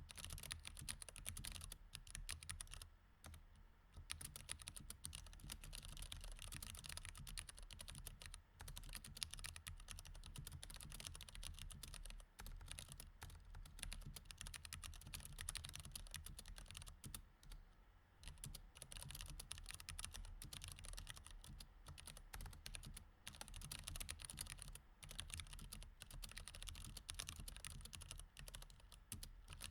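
Continuous typing on a mechanical keyboard with Cherry MX Red switches: a quick, uneven run of key clicks, with short pauses about three seconds in and again near eighteen seconds.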